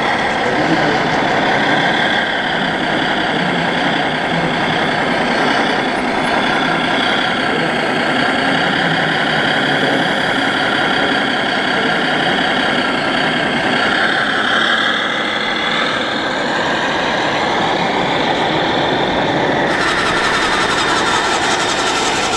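Radio-controlled model fire trucks running with a steady diesel truck engine sound from their sound modules, over the busy background noise of a large hall. The sound shifts slightly about 20 seconds in.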